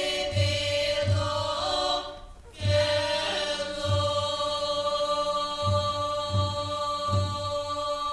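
A choir of voices singing long held notes in harmony, with a low drumbeat about every 0.7 seconds under some phrases. The singing breaks off briefly about two seconds in before the next phrase.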